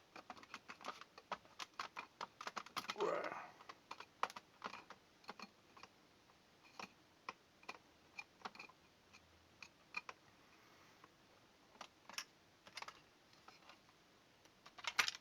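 Hard plastic housing of a dummy security camera clicking and tapping as it is handled and pried at to find how it opens. A quick run of small clicks for the first several seconds, then scattered single clicks.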